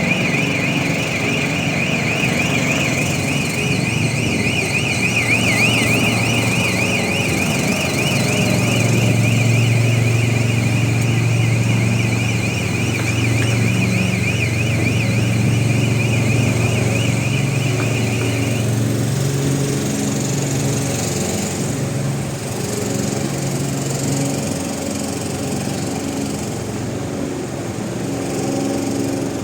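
A car alarm sounding a fast warbling electronic tone, cutting off about two-thirds of the way through, over the steady hum of small petrol generators running during a power cut.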